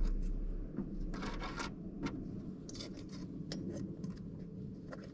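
Scattered small clicks and brief scrapes of metal parts being handled while refitting a Willys Jeep headlight's lens, rim and retaining clips.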